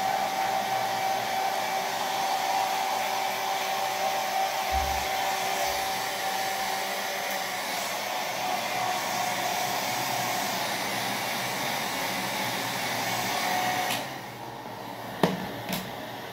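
Handheld hair dryer running steadily as it dries hair, a steady whine over the rush of air. It cuts off about two seconds before the end, followed by two sharp knocks.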